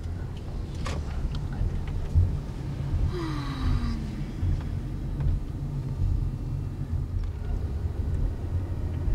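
Low, steady rumble of a car driving, heard from inside the cabin, with a short falling tone a little over three seconds in.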